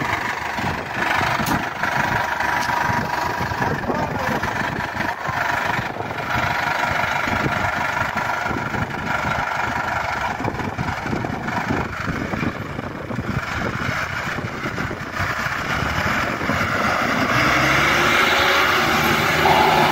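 New Holland TS6.120 tractor's turbocharged diesel engine running steadily, then pulling away under load with a heavy 26-disc disc harrow, getting louder near the end as the tractor picks up speed.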